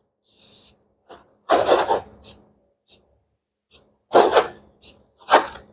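Aerosol spray-paint can hissing in three short bursts as red paint is sprayed onto a welded steel kickstand bracket, with a few faint ticks between the bursts.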